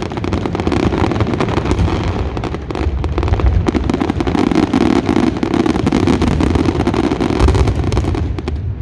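A dense, continuous barrage of Fallas firecrackers and fireworks exploding, the bangs running together into a loud crackling rumble. It stops abruptly near the end.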